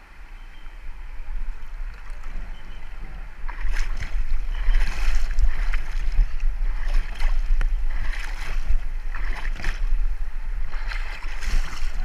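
River water splashing and lapping against a camera held at the surface, in irregular surges that grow louder about four seconds in, over a steady low rumble.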